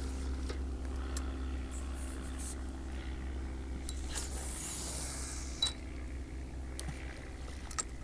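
Steady low hum with a few faint clicks, and a soft hiss about four to five seconds in.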